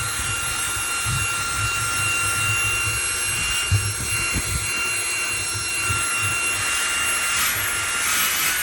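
Eufy H30 handheld vacuum running steadily with a high whine, its bare nozzle rubbing and knocking against the vehicle floor as it tries to pull up sand embedded in the carpet.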